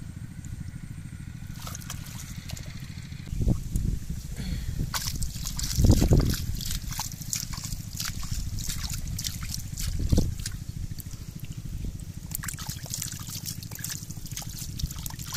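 Shallow muddy water trickling and sloshing, with three louder splashes and many small crackling drips, over a steady low rumble.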